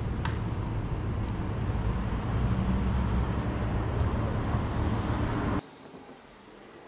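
Street traffic: a motor vehicle's engine and road noise running close by, a little louder in the middle. It cuts off abruptly about five and a half seconds in, leaving a much quieter background.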